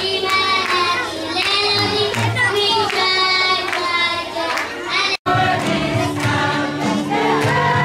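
A group of children singing together in long held notes. The sound drops out for an instant about five seconds in, then the singing carries on over more background noise.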